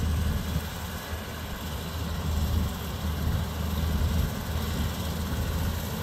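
Gleaner S96 combine and a tractor pulling a grain cart running steadily while harvesting, a continuous low diesel rumble.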